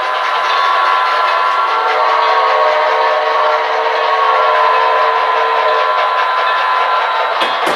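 Model trains running, with a steady, layered mix of tones from the locomotives' onboard sound. Two quick clicks come near the end.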